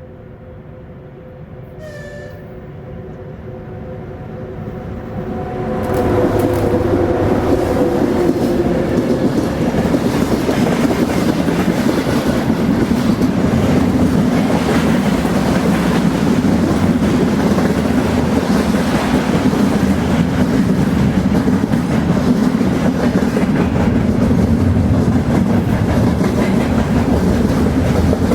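A freight train approaching with a steady horn chord, growing louder over the first six seconds. It then runs close by with a loud, even rumble and the clickety-clack of wheels over rail joints. The horn fades out a few seconds after the train arrives.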